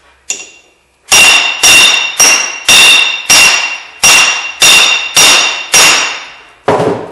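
Hammer blows on a steel seal-installer tool, driving a new outer seal onto a front drive axle's housing. A light tap, then about ten hard, ringing metallic strikes roughly two a second, the last one duller.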